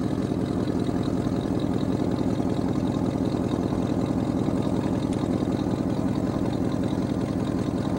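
A vehicle engine idling steadily close by, an even low running sound that doesn't change.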